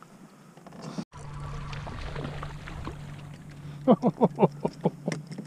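Water washing along the plastic hull of a moving pedal kayak, with a steady low hum. About four seconds in comes a quick run of about six short rising calls.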